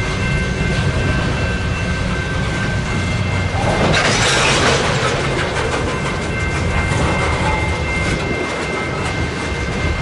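Freight train rolling past at close range, boxcars and tank cars rumbling steadily with wheels clicking over the rail joints. A faint steady high whine runs through most of it, and there is a brief louder rush of noise about four seconds in.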